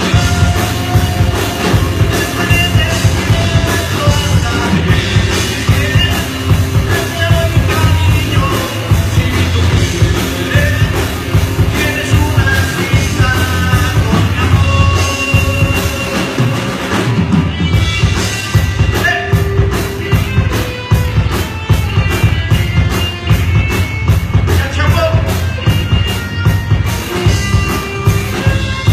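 Live band playing loudly: electric guitars, bass and a drum kit, with a male lead vocalist singing over them. From about halfway through, a steady, evenly spaced beat stands out.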